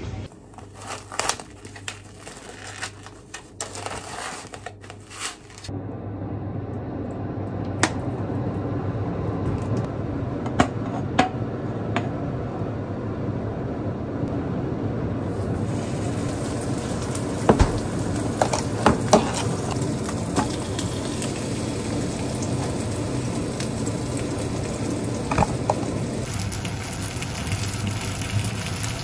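A few seconds of knocks and clicks from kitchen handling, then from about six seconds in a steady sizzle of food frying in a pan, with occasional sharp clicks of utensils.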